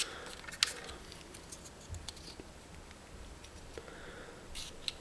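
Faint handling noise of heat-shrink tubing being slid onto insulated wires: light rustling with a few small clicks, the sharpest about half a second in.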